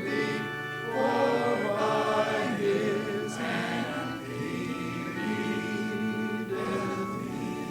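A group of voices singing a hymn together with keyboard accompaniment.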